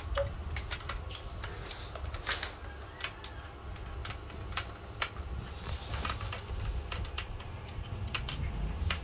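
Irregular light clicks and taps, several a second at uneven spacing, as a children's balance bike is handled and poked at with a thin tool, over a low rumble of handling noise.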